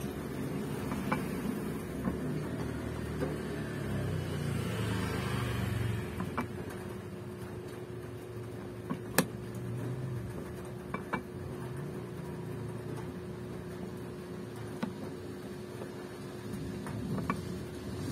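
Hand-lever arbor press pressing fretwire into a guitar fretboard: a handful of sharp, scattered clicks and taps as the press is worked, over a steady low hum.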